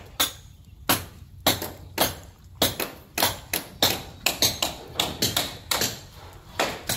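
Hammering: a run of sharp blows, a second or so apart at first, then quicker, at about three a second.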